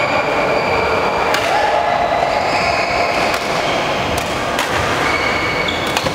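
Badminton practice on a wooden court: several sharp racket strikes on shuttlecocks at irregular moments and short high squeaks of shoes on the floor, over a loud, steady rumble of hall noise.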